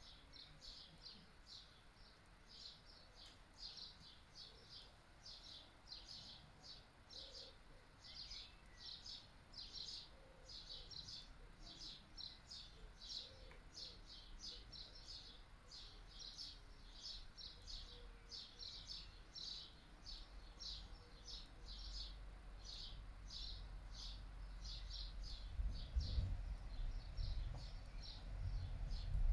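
A steady series of short, high-pitched chirps, repeated about two to three times a second without a break. Under it, low wind rumble on the microphone grows louder in the second half, gusting hardest near the end.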